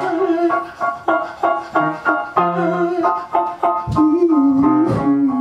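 Steinway Model D concert grand piano playing short repeated chords in a steady rhythm. About four seconds in, a voice comes in over it with a held, wavering wordless note.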